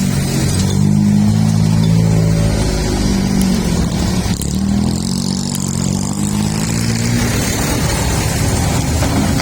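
Heavy diesel engine of an excavator running under load, its note rising and falling several times as the machine works.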